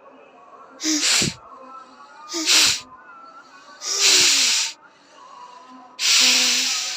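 A person sneezing four times, forceful sneezes after a jal neti saline nasal rinse. The first two are short and the last two longer and breathier.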